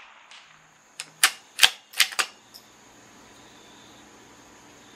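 Bolt of a CZ 457 .22LR bolt-action rifle being worked between shots: a quick run of about five sharp metallic clicks about a second in, as the bolt is lifted, drawn back, pushed forward and locked down.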